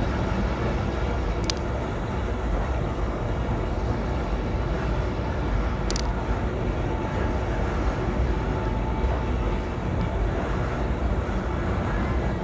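Steady running noise of the Alishan Forest Railway's narrow-gauge train rolling along, heard from aboard a carriage, with two brief high squeaks about a second and a half in and again about six seconds in.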